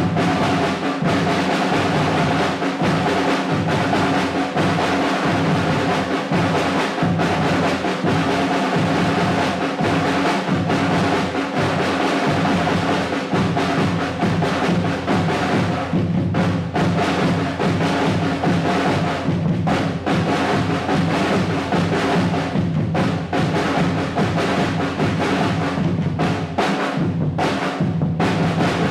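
Drum ensemble playing a fast, continuous pattern on snare drums, the strikes packed closely over a ringing drum tone, all stopping together at the end.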